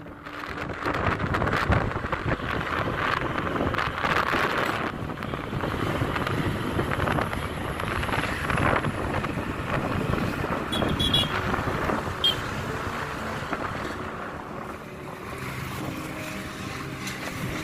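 Wind rushing over the microphone with road and engine noise from a moving two-wheeler, easing off near the end.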